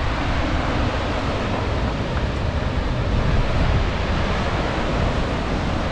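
Steady roar of falling and rushing water from the Hjálparfoss waterfall, with a low, uneven rumble underneath.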